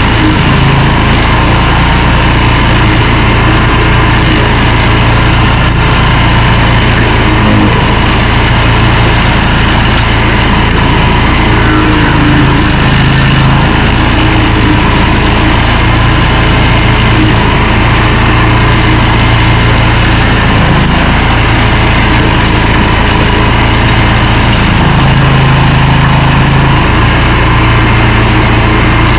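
Stump grinder running at high throttle while it grinds out a stump: a loud, steady engine drone whose low note shifts every few seconds as the cutter wheel takes load.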